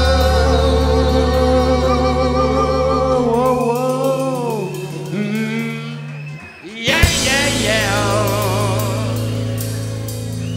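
Live band music: a male singer holds long notes with vibrato over sustained chords from an acoustic guitar and band. The music drops away briefly about six and a half seconds in, then comes back with a sharp new chord and another held sung line.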